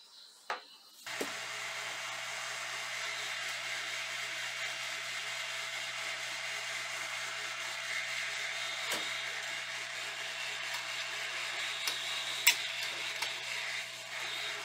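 Hot-air rework station blowing onto a motherboard's network chip to desolder it: a steady airy hiss with a low fan hum that starts about a second in. A few light clicks, one sharper near the end.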